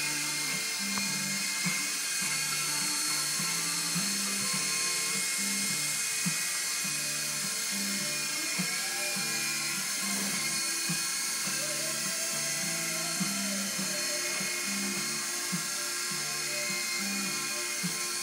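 Small electric toy helicopter flying and hovering, its motor and rotors giving a steady high whine. Background music with a regular beat plays underneath.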